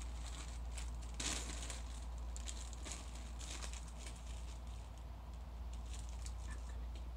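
Thin metallic foil sheet crinkling as it is handled and folded, with a louder rustle about a second in and scattered small crackles after it.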